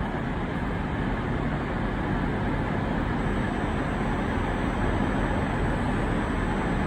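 Steady background noise of a large railway station: a continuous low rumble and hiss with no sudden events, heard between public-address announcements.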